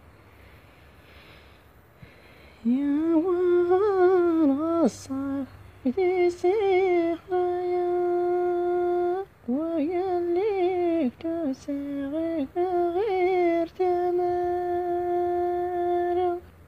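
A solo woman's voice humming an unaccompanied melody, starting about two and a half seconds in. It moves through wavering, ornamented turns and long held notes, with short breaks for breath.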